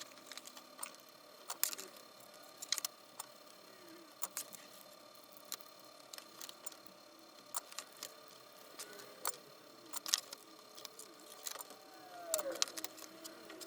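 Small scattered clicks and light taps of hand soldering work, tacking switches onto a circuit board, irregular and a few per second at most, over a faint steady hum.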